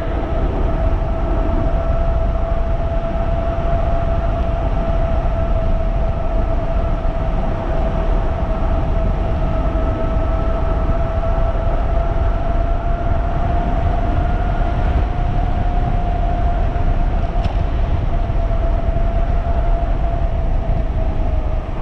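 A 3,000-watt electric bike's motor whining steadily at cruising speed, with wind rushing over the microphone.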